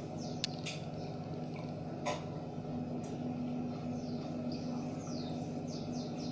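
A steady low hum, with faint high chirps falling in pitch and a few light clicks, the sharpest about two seconds in.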